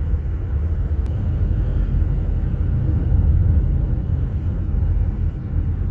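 Car cabin noise while driving: a steady low rumble of tyres on the road and the engine, heard from inside the car.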